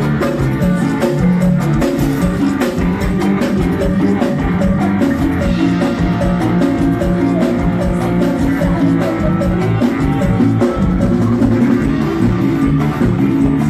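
A live band plays amplified through a PA, with electric guitar, bass guitar and drum kit keeping a steady beat in an instrumental passage.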